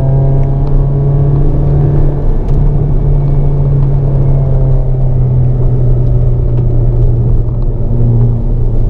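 Hyundai Avante N's turbocharged 2.0-litre four-cylinder engine running under load at a steady pitch, heard from inside the cabin, with a slight drop in pitch about two and a half seconds in.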